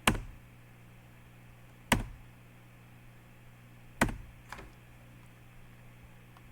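Sharp clicks or taps at a computer, about two seconds apart: three loud ones and a fainter one just after the third, over a steady low electrical hum.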